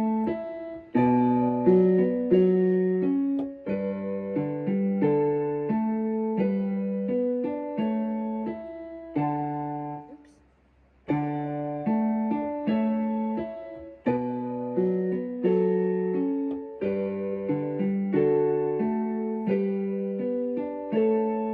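Background music led by a mellow piano or electric-piano melody, with a brief pause about halfway through before the tune resumes.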